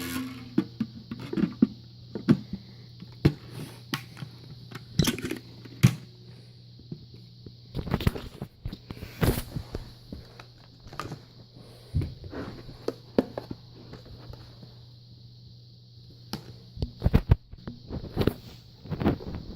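Irregular clicks and knocks of objects being handled, some in quick clusters, over a faint steady hum.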